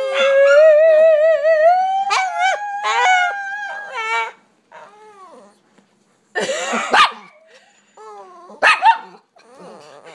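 Small dogs howling: one long wavering howl that rises slowly in pitch over the first four seconds, then short yips and whines, a loud rough bark about six seconds in, and two sharp barks near the end.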